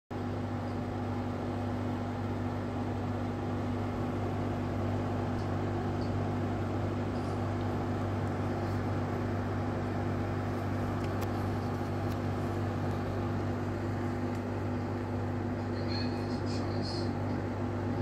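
MeacoDry Arete One 25L dehumidifier running, its top control panel vibrating against the casing: a steady low buzz over the machine's running hum. The vibration is a fault in the panel's fit.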